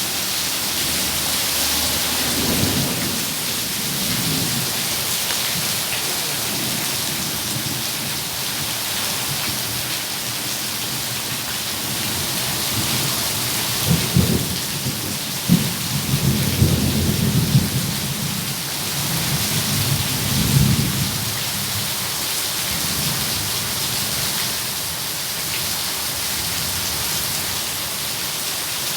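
Steady heavy rain falling, with thunder rumbling underneath; a couple of sharp close cracks about halfway through lead into a longer rolling rumble.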